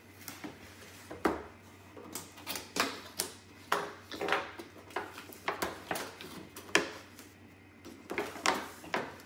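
Cardboard box being opened and its clear plastic packaging insert pulled out and handled: irregular crinkling, rustling and sharp clicks, the loudest about seven seconds in.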